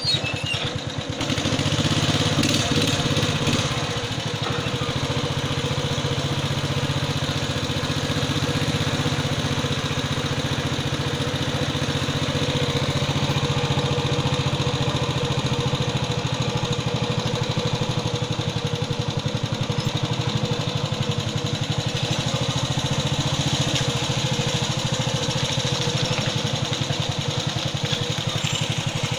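Longtail boat engine running steadily under way, a fast even chugging with a little more power in the first few seconds.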